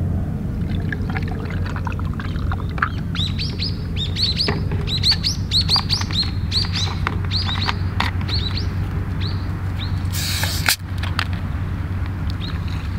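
Birds chirping in a quick run of short, falling calls over a steady low hum, with a short hiss about ten seconds in.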